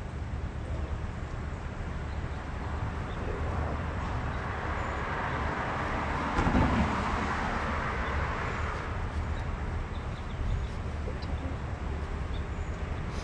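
A vehicle passing on the street, swelling to its loudest about halfway through and then fading, over a steady low rumble of street noise.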